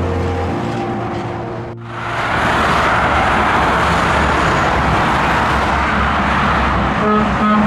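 Scania trucks passing on a motorway: a steady rush of tyre and engine noise. A horn chord dies away in the first half-second, and about seven seconds in a truck's multi-tone air horn starts sounding.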